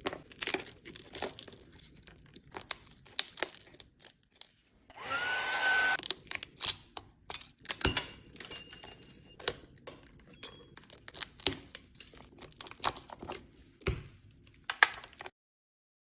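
Many light taps, clicks and crunches of small tools working the cracked back glass off an iPhone 13 Pro Max, breaking the glass free. About five seconds in there is a brief whirring hiss that rises slightly in pitch.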